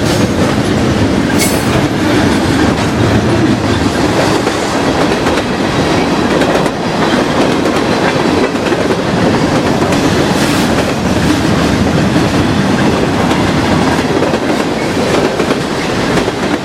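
CN freight train rolling past close by: a steady rumble of the railcars with the clatter of wheels over the rail joints.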